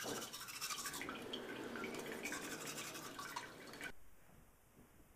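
Brisk scrubbing with watery, dripping sounds, which stops abruptly about four seconds in.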